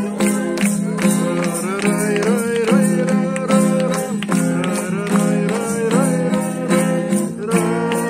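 Acoustic guitar strummed in a steady beat while voices sing a song along with it, a campfire singalong.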